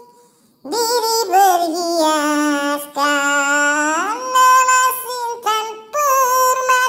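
High, childlike singing voice of a dangdut song: drawn-out sung notes that glide between pitches and are held with vibrato, starting after a brief pause about half a second in.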